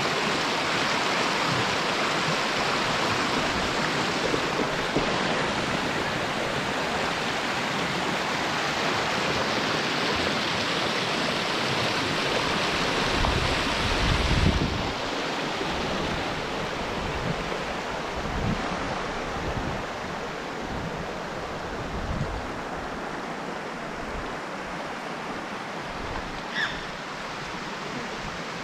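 Steady rush of the Makeli Oya stream's water pouring over rocks, a little quieter after about halfway, with occasional low wind buffeting on the microphone.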